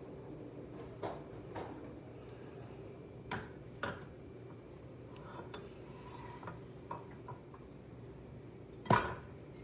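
Cooking utensil clicking and knocking against a frying pan on the stove as bread is laid in and turned, scattered light taps with one sharp clatter about nine seconds in, over a steady low hum.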